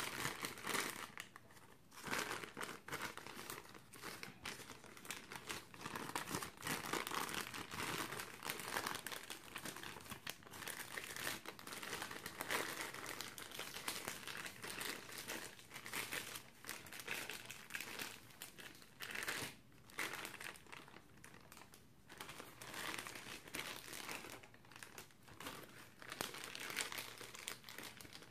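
Clear plastic bag crinkling and rustling as hands squeeze and knead the white slime mix inside it, an irregular crackle with a few brief pauses.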